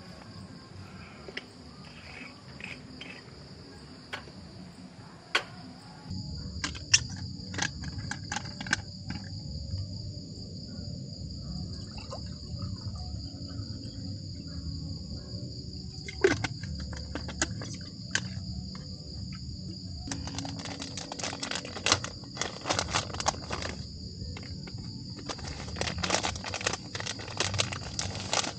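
Night insects and crickets trilling steadily, with scattered clinks and knocks of camp cookware and a glass jar being handled at the stove.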